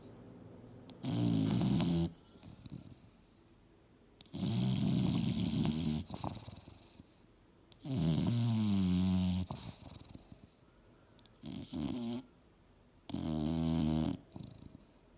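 English bulldog snoring in her sleep: five loud snores, about three seconds apart, with quieter breathing between them.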